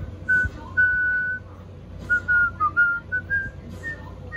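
A whistled tune: a string of clear, pure notes, one held about half a second early on, then a quick cluster of short notes, with the last few notes pitched higher.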